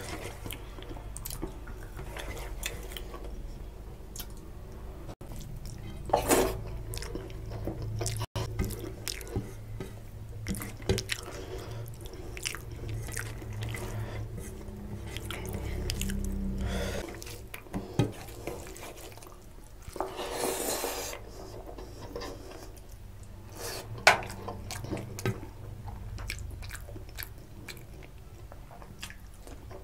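Close-up eating sounds of rice and mutton curry eaten by hand: chewing and wet mouth smacks, with fingers squishing and mixing rice on a steel plate, heard as scattered short clicks and squelches.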